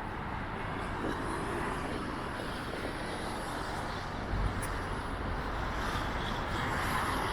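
Road traffic passing steadily, a continuous hiss of tyres and engines, with a deeper low rumble coming in about four seconds in.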